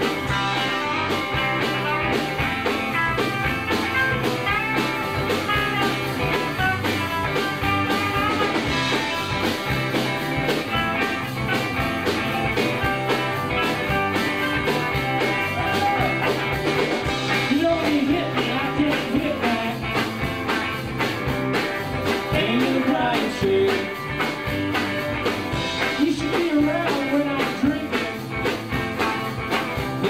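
Live band playing an instrumental passage on guitars and drums, with sliding, bending lead notes through the second half.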